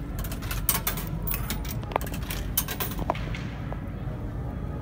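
Coins clinking and rattling as they are fed into a vending machine's coin slot, a quick run of metallic clicks in the first two seconds, then a few separate clicks, over a steady low hum.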